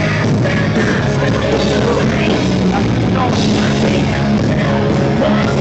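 Loud rock music with drum kit, guitar and singing, playing steadily.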